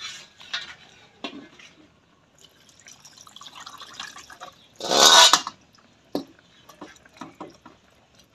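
Hot spiced broth poured from a wok into an aluminium pot, splashing over pieces of meat, loudest in a burst about five seconds in. Then a metal spatula clinks several times against the pot.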